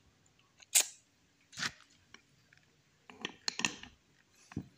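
Several sharp metallic clicks and clinks from the steel parts of a Suzuki Futura steering rack as a steel bush is pushed over the pinion into the rack housing. The first click, about a second in, is the loudest, and a quicker run of clinks comes near the end.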